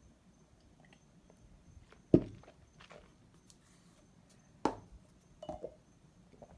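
Three short knocks of hard objects set down or handled on a tabletop, the first, about two seconds in, the loudest.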